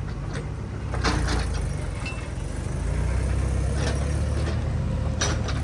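Diesel engine of heavy earth-moving machinery running steadily, getting a little louder about a second in and again about three seconds in. A few short clatters are heard over it.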